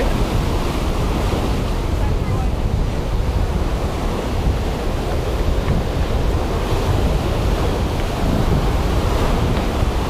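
Ocean surf breaking and washing against a rocky shore, a steady rushing wash, with wind buffeting the microphone.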